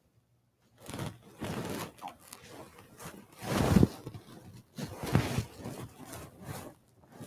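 Rustling and scraping of cloth and handling noises at the altar, coming in a few separate bursts, the loudest about three and a half seconds in.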